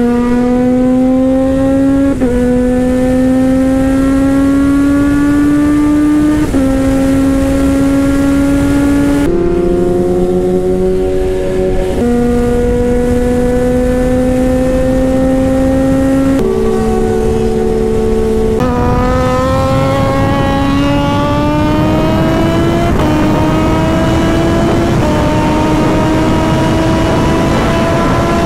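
Kawasaki Z H2's supercharged inline-four engine, breathing through an SC Project exhaust, pulling hard at high speed. Its note climbs slowly and steadily, broken every few seconds by small steps and drops in pitch as it goes through the gears, over a steady rush of wind.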